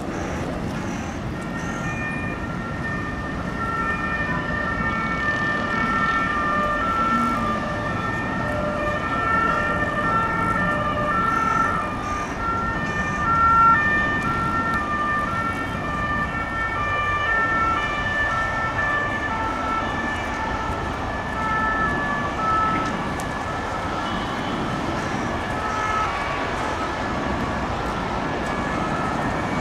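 French two-tone sirens from a convoy of prison-administration vans and a police car, several sirens sounding at once so their alternating high-low notes overlap, over steady city traffic noise.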